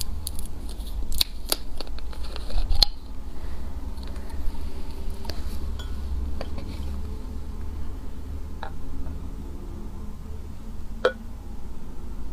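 Screw cap of a plastic cola bottle twisted open: a quick run of clicks and crackles in the first three seconds with a short hiss as it comes loose. A few single light clicks and knocks of glass follow as the bottle and mug are handled.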